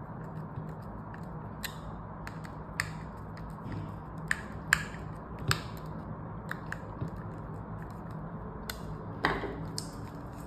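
Small screwdriver turning screws into a plastic device housing: scattered sharp clicks and ticks of the tool on the screw heads and plastic, irregularly spaced, over a steady low hum.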